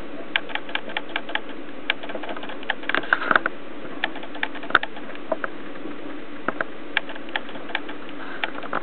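Camera auto-focus motor clicking: irregular small clicks, bunched in a quick flurry about three seconds in, over a steady low hum.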